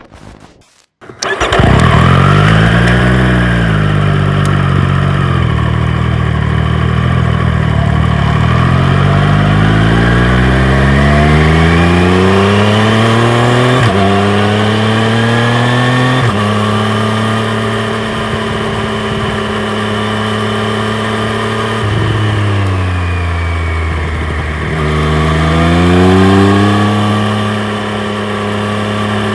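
2020 Triumph Street Triple RS's 765 cc three-cylinder engine coming in about a second in with a short rev, then climbing steadily in revs for several seconds. After a brief break it holds steady, dips, and climbs again before settling.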